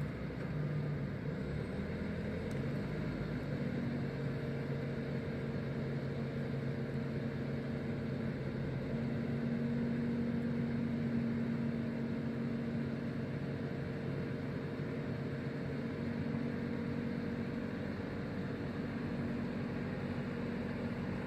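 Engine of a forestry machine carrying a chainsaw felling head, running steadily with a low hum and a few steady tones, a little louder around the middle.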